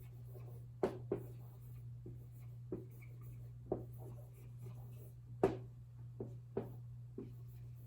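Handwriting: scattered short taps and scratches of a writing tool on a surface, about ten in eight seconds at irregular intervals, over a steady low electrical hum.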